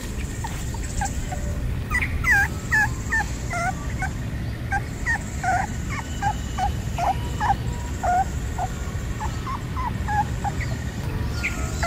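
Young puppy whimpering: a run of short, high whines, two or three a second, that stops about a second before the end.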